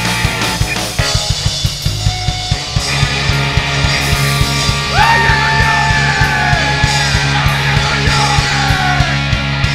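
Live rock band playing: drums keeping a steady fast beat under bass and electric guitars. From about five seconds in, a held high note slowly slides down.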